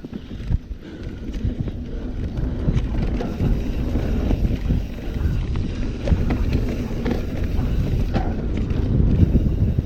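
Mountain bike riding downhill over rough ground: tyres rumbling on dirt, with the bike knocking and rattling over bumps and wind buffeting the microphone. It grows louder over the first few seconds.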